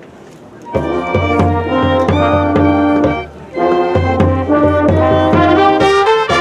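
Marching band brass comes in loudly under a second in, playing sustained chords with a strong low bass part. The playing breaks off briefly a little past the middle, then resumes.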